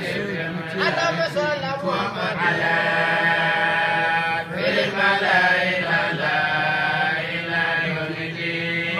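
A man chanting an Arabic devotional hymn in praise of the Prophet Muhammad, drawing out long held notes with wavering runs between them.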